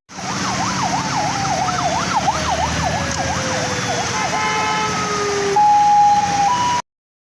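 Emergency vehicle siren wailing, its pitch sweeping up and down and quickening. A second tone slides slowly downward beneath it. Near the end it changes to steady tones, then cuts off abruptly, all over street traffic noise.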